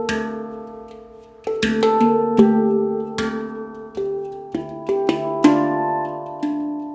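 Handpan tuned to D Kurd 9 played by hand: a low note rings out and fades, then from about a second and a half in a melody of struck notes follows, each ringing on and overlapping the next, with light taps between.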